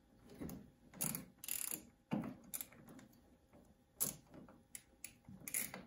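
Screwdriver turning the screw of a boiler gas valve's line pressure test port, making a string of irregular metallic clicks and scrapes as the screw is loosened several turns.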